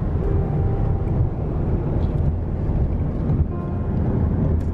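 Steady, loud low rumble of a moving car: road and wind noise.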